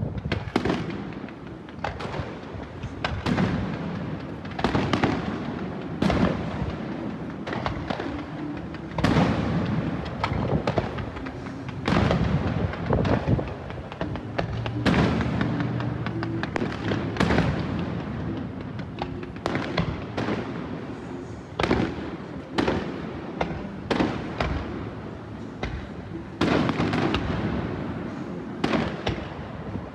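Fireworks display: a steady barrage of aerial shells bursting, one or two bangs a second, each trailing an echo, with crackling between.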